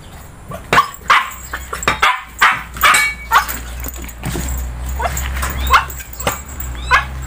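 Husky giving a string of short barks and yips, about eight or nine in all, with a steady low hum underneath from about two seconds in.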